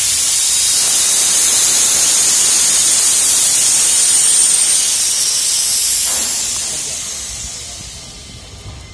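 Loud steady hiss of pressurized water and air escaping from the MV water spray system's overhead pipework under hydrotest, with a faint high whistle in it. It fades away over the last few seconds.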